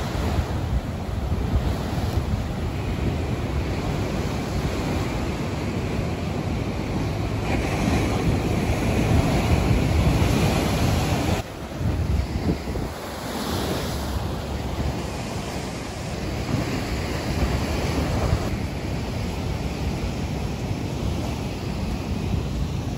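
Ocean surf rushing with wind gusting across the microphone, a dense low rumbling noise that swells and eases; it drops sharply for a moment about halfway through.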